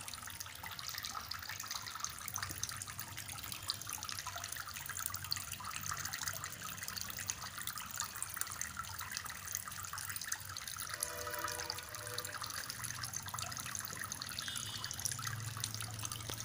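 Water trickling and dripping steadily as a small motor pump recirculates it through a tabletop water-cycle model, spattering down as "rain" and running back from a pipe into the pond, with a low hum underneath.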